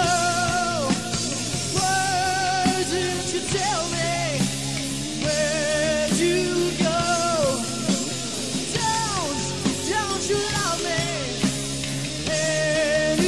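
Live recording of a rock band playing: drums and bass under a melodic lead line that wavers in pitch and slides downward at the end of each phrase.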